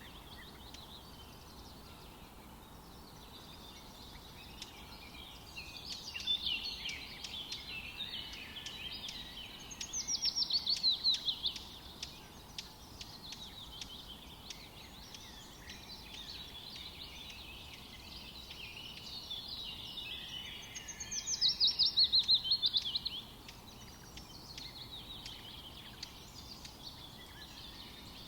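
Small birds chirping continuously, with a low steady background hiss. Twice, about ten seconds apart, a louder rapid trill of notes falls in pitch and lasts a second or two.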